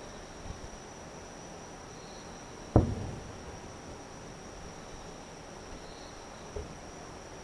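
Distant aerial firework shell going off: one sharp, loud boom a little under three seconds in that trails off over about a second, and a much fainter thump near the end. Insects trill steadily underneath.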